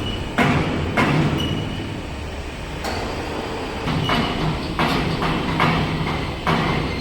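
Electric welding rotator running in a fabrication shop: a steady low motor hum with rolling, grinding noise that surges every half second to a second.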